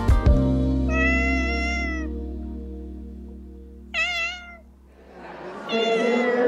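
A cat meowing three times: a long steady call, a shorter wavering one, then a third near the end. Under it a closing chord of background music fades out, and crowd chatter rises near the end.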